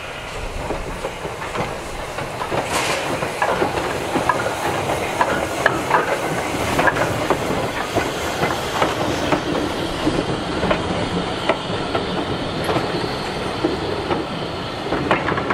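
Two 0-4-0 saddle-tank steam locomotives hauling a coach pass close by, with repeated sharp clicks and clanks of wheels over rail joints and some steam hiss.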